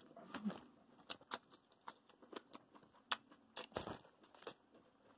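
Faint, scattered crinkles and clicks of a paper hot dog wrapper being handled.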